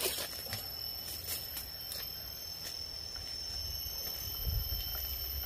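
Steady high-pitched buzzing of insects in two tones, a higher one joining about halfway through, over faint scattered ticks and rustles of soil being handled.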